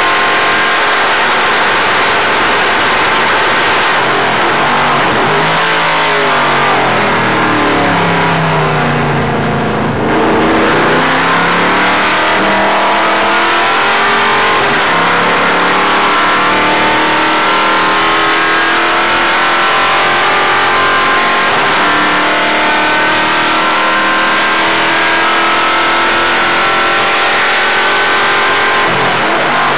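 Racing stock car engine heard from inside the cockpit. The engine note falls as the car slows, down to a low point about ten seconds in, then climbs in a long, steady pull under throttle through most of the rest.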